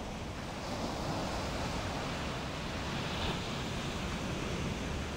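Ocean surf: waves breaking and washing up the beach, a steady rush that swells about a second in, with wind buffeting the microphone.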